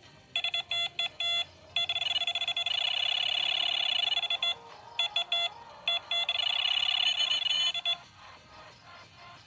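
Electronic beeping: quick runs of short, rapidly pulsed beeps at a few fixed pitches, with two brief pauses, stopping about a second and a half before the end.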